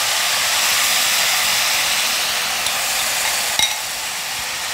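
Cooked Surti papdi and tuvar beans sizzling in hot oil in a metal kadai as a steel spoon stirs them. The sizzle is steady and eases off slightly, with one short tap of the spoon against the pan about three and a half seconds in.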